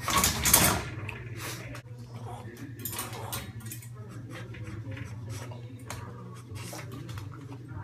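A Boston terrier working at the bottom of a metal child gate: scattered light metallic clicks, clinks and rattles of the gate bars. A short, louder noisy burst comes right at the start.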